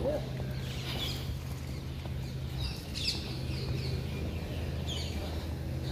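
Birds chirping in trees, with a few bursts of short, falling high notes over a steady low hum.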